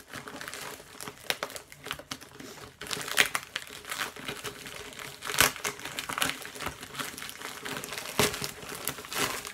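Plastic Priority Mail poly mailer being crinkled and torn open by hand, an irregular rustling with a few sharper rips.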